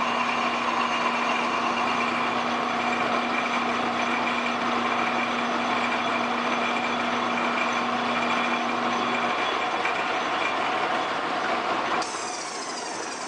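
Metal lathe running with a boring bar cutting inside the bore of a spinning metal hub: a steady machine hum with held whining tones. A low hum drops out about nine seconds in, and near the end the sound steps down quieter.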